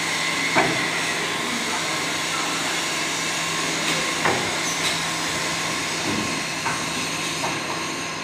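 A large chain-driven machine running just after being switched on, with a steady mechanical whir and hum. A few sharp clanks from the chain and its metal cross-bars come about half a second in and a few more around the middle.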